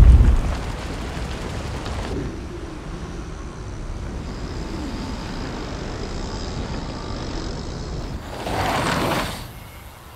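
Mountain bike on a dirt trail: a low rumble of tyres on dirt at the start, then a quieter steady hush with a faint high tone while the bike is in the air, then about a second of tyres rushing through dirt near the end before it drops away.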